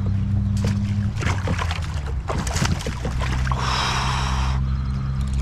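A person breathing hard after landing a big bass, with two long hissing breaths in the second half. Knocks and rattles of handling in the kayak come in the first half, over a steady low hum.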